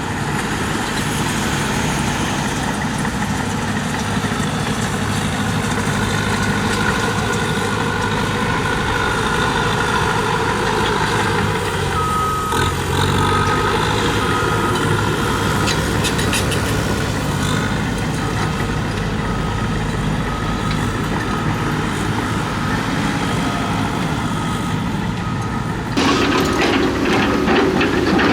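Heavy diesel earthmoving machinery running steadily, with a backup alarm beeping over and over from about halfway through. Near the end the sound jumps abruptly louder, with clattering.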